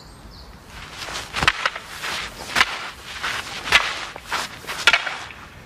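Footsteps and shuffling of a martial artist moving through staff techniques, with four sharper steps about a second apart.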